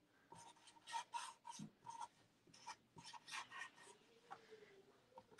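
Black felt-tip marker drawing on a brown cut-out, faint and scratchy, in a string of short strokes about three a second as small flowers are doodled.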